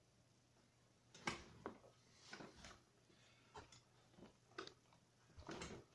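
Carving knife shaving a wooden stick: a series of short, faint scrapes starting about a second in.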